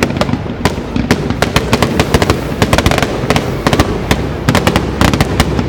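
Fireworks going off in a rapid, irregular string of sharp bangs and crackles, several a second without a pause.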